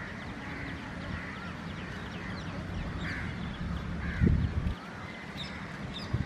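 Crows cawing several times over the low rumble of an electric locomotive and train approaching slowly, with a heavy thump about four seconds in.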